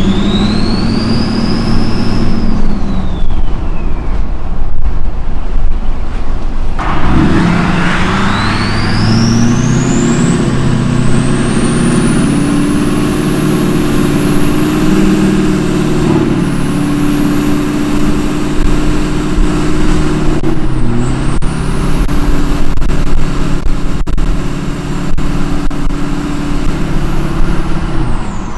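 LLY Duramax 6.6 L V8 turbodiesel with a 64 mm turbo and 3-inch downpipe accelerating, heard from inside the cab. The turbo's jet-like whistle spools up to a very high pitch over the engine's drone and dips briefly twice. A shorter whistle rises and dies away in the first few seconds.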